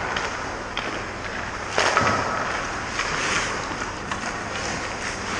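Hockey skate blades scraping on rink ice: a sudden, louder scrape about two seconds in, with smaller scrapes after it.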